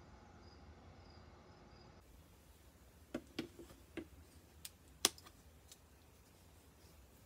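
Crickets chirping in a faint, evenly repeating pattern for about the first two seconds. The sound then changes to quiet room tone with a handful of sharp clicks and taps, the loudest about five seconds in.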